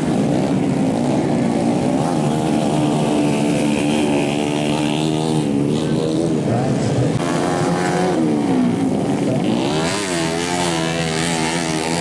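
Small youth dirt bike engines revving through a muddy motocross race. Several engines at different pitches rise and fall as the riders throttle on and off.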